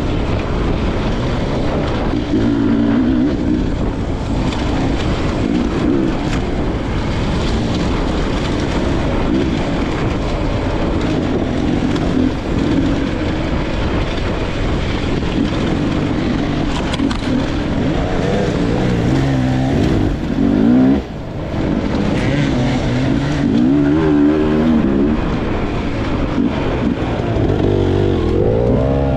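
Beta 300RR two-stroke dirt bike engine, ridden along singletrack, its pitch rising and falling with the throttle. About two-thirds of the way through the level drops sharply for a moment.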